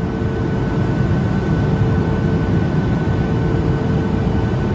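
Jet airliner cabin noise in flight, heard from a window seat over the wing: a steady rushing rumble with a low and a higher steady whine from the turbofan engines.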